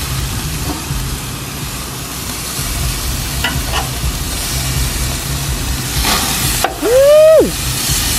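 Steaks sizzling on the grates of a gas grill, with a low steady hum beneath and a couple of light clicks from the metal tongs a few seconds in. About two-thirds of the way through, a brief, loud, high tone rises and then falls.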